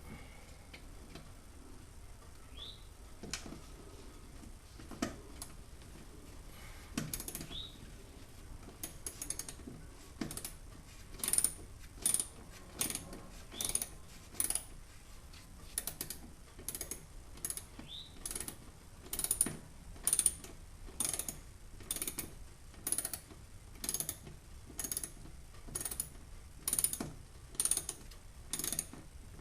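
Hand ratchet clicking in short repeated strokes, a little over one a second, as it backs out a screw. A few scattered clicks come first, and the steady rhythm starts about a third of the way in.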